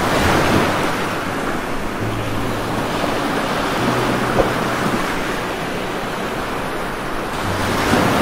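Heavy rain pouring down on foliage: a steady, dense rushing hiss with no let-up.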